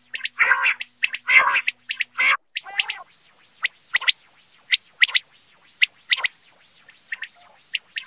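Common quail calling: harsh rasping calls for the first two seconds or so, then a series of short, sharp high notes, often in pairs, about half a second apart.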